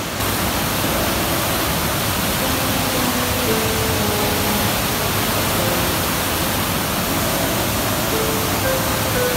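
Wailuku River in flash flood: the dense, steady rush of churning brown floodwater over rapids, running at about 70,000 cubic feet per second. The rush gets louder and brighter just after the start. Soft background music with slow held notes plays over it.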